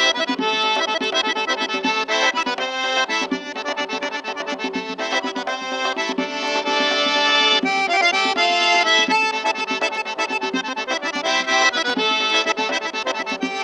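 Instrumental folk music on accordion: a fast tune of rapid, closely repeated notes with chords, without singing.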